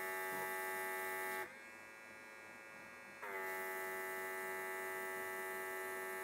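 Worx WX742 Maker X airbrush's built-in compressor running with a steady whine and a hiss of air as thinner is sprayed through to flush out the paint. About a second and a half in the hiss drops away and the whine goes quieter and slightly higher for about two seconds, then settles back to its first note as spraying resumes.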